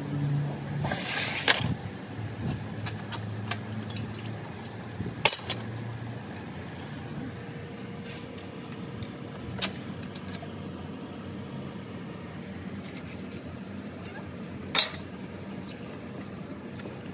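Hand work on a car's underside: a few sharp metallic clicks and knocks as parts and tools touch the underbody, the loudest near the end, over a low steady hum that fades out about six seconds in.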